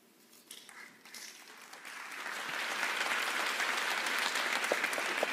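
Audience applause. It starts with a few scattered claps about a second in and builds into steady clapping from many hands.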